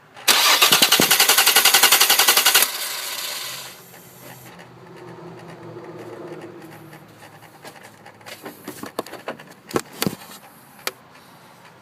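A car that won't start chatters with a loud burst of rapid clicking for about two and a half seconds as the start is tried, and the engine does not catch. Scattered single clicks and knocks follow near the end.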